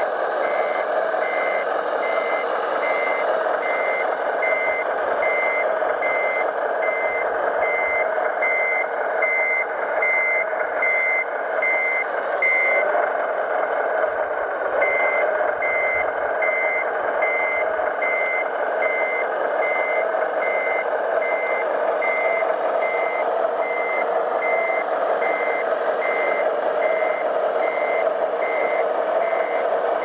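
Reversing beeper of a radio-controlled heavy construction vehicle, a high beep repeating about twice a second, pausing for about two seconds near the middle, over a steady rushing noise.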